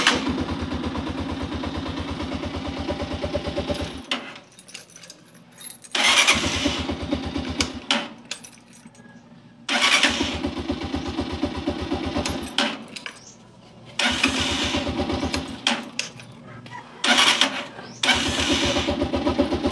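Honda TMX 125's electric starter cranking its single-cylinder engine in repeated bursts of one to four seconds, each with a fast even chugging and separated by short pauses.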